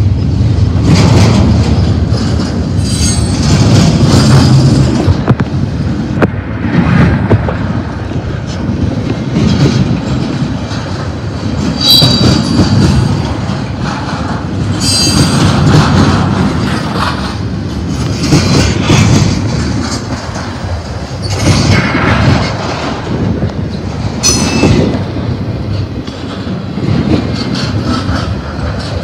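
Double-stack intermodal freight cars rolling past at close range: steel wheels rumbling and clacking on the rail, with brief high-pitched wheel squeals several times.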